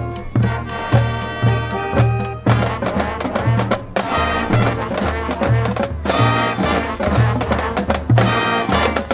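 Marching band playing: brass melody of trumpets and trombones over a low bass note pulsing about twice a second.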